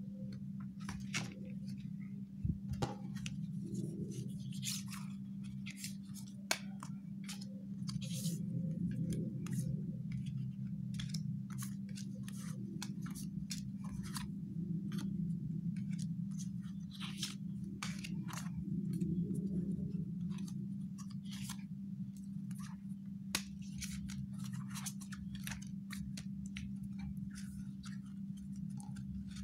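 Paper sticker sheets and cards handled and shuffled by hand: many short, crisp rustles, flicks and taps, over a steady low hum.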